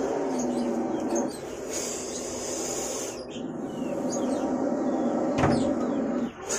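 King cobra growling: three long, low, hissing growls with short breaks between them, the last the longest, a threat display while it fights another snake. A sharp knock about five seconds in.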